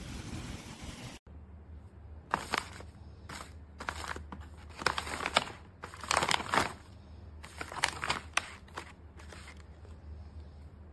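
Plastic pouches of dog dental chews crinkling as hands handle them, in irregular rustling bursts over a faint low hum.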